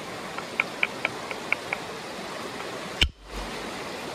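A moose-antler billet strikes a chert rock once, hard, about three seconds in, knocking off a test flake to check the stone's quality. Before the blow comes a run of about seven light clicks. The river's flowing water hisses steadily underneath.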